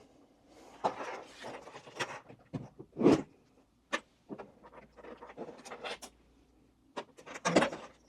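Hands handling and fitting camera rig parts: a string of small clicks and rubbing, with a louder knock about three seconds in and another burst of handling near the end.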